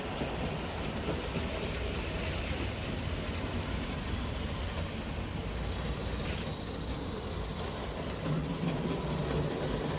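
Model railway locomotive running round the layout: a steady electric-motor whirr and wheels rumbling on the track, getting a little louder for a moment near the end.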